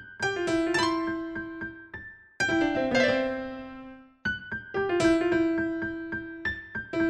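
Piano music: phrases of struck notes that ring and fade away, broken by two short pauses about two and four seconds in.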